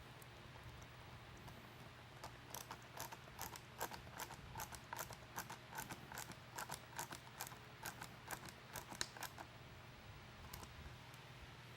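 Faint, rapid, irregular clicking and tapping of small plastic and metal parts as an LED deck light's housing is worked and its retainer tabs are fitted back in, starting about two seconds in and stopping a couple of seconds before the end.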